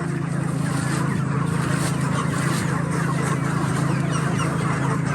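A flock of chickens, many birds clucking and chirping at once in a dense, overlapping chatter, over a steady low hum.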